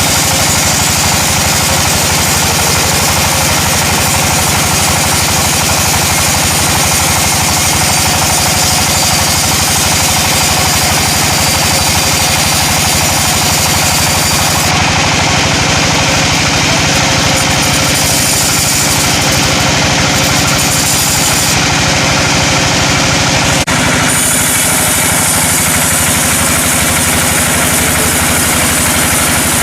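An engine running steadily under a constant load, with a hiss of machinery over it. The sound changes abruptly about 15 and 24 seconds in.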